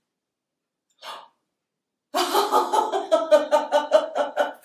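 A woman's deliberate laughter-yoga laugh: after a brief sound about a second in, a rapid run of 'ha-ha' pulses, about five a second, starts about two seconds in.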